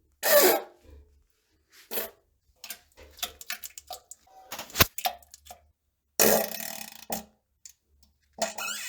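Several short bursts of gassy bodily noise, the loudest about a quarter second in and around six seconds in, with a run of small crackles and pops between them and one sharp click near the middle.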